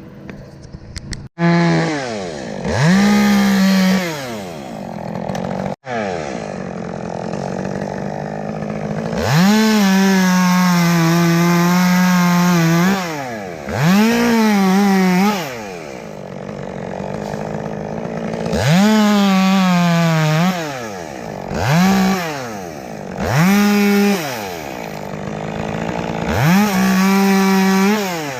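Two-stroke chainsaw revved up to full throttle again and again, held high for a second to several seconds at a time, its pitch sagging a little under load as it cuts into oak limbs, and dropping back toward idle between cuts.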